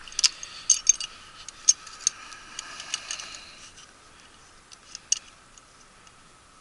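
Irregular small metallic clicks and taps from hand tools on the furnace's pilot burner fittings, thickest in the first three seconds, then a few scattered ticks about five seconds in.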